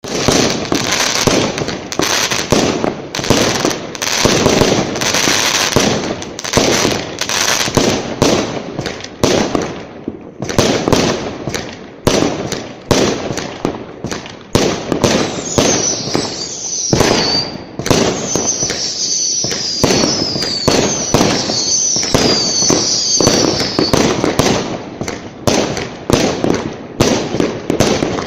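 New Year fireworks going off: a dense, continuous run of bangs and crackling explosions. Through the middle, several whistling shells whistle repeatedly, each falling in pitch.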